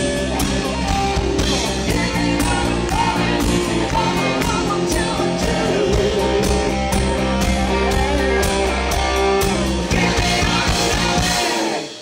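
Live rock band playing: electric guitars, bass guitar and drum kit, with a woman singing. The song ends just before the end, the bass and drums cutting off.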